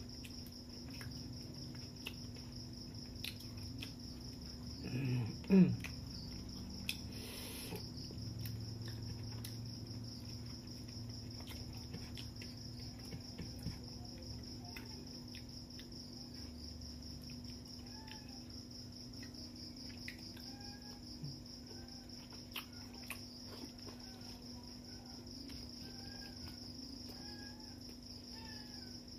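Steady high chirring of crickets, with soft scattered clicks from hand-eating rice and fish off a plate, and a brief louder sound about five seconds in.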